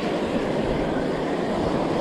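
Small surf waves washing steadily onto the beach, with wind rumbling on the microphone.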